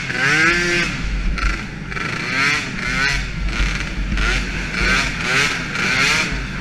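Small youth quad engines revving up and down over and over, the pitch rising and falling about twice a second over a steady low rumble.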